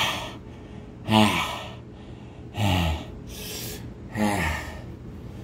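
A man's hard, open-mouthed panting: about five heavy breaths, three of them carrying a short falling groan in the voice, as his mouth burns from superhot chilli extract.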